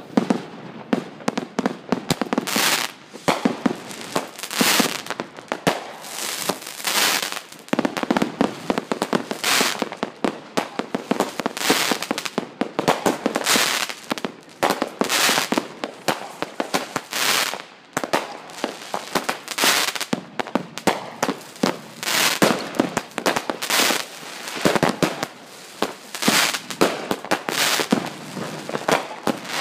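Fireworks going off without pause: a dense, continuous run of sharp bangs and crackling reports, with many overlapping.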